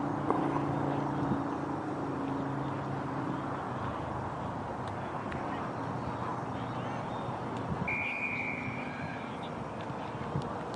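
A single referee's whistle blast of about a second near the end, over steady outdoor background noise, with a low drawn-out tone during the first few seconds.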